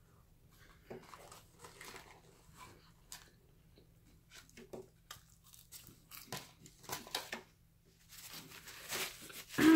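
Chewing and biting food close to the microphone: soft, irregular mouth noises and smacks with some crinkling, getting busier and louder near the end.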